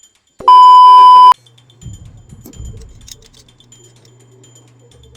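A single loud electronic beep: one steady high tone that starts about half a second in and cuts off abruptly after under a second. It is followed by a faint low hum and a few soft knocks.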